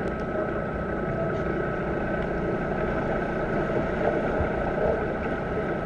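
Muffled underwater pool noise picked up by a submerged camera: a steady churning rumble of water stirred by swimmers finning above, with a faint steady hum.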